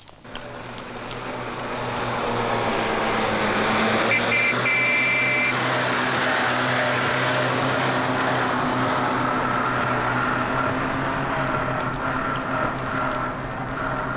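Van engine running with road noise as it drives, fading in over the first two seconds and then steady.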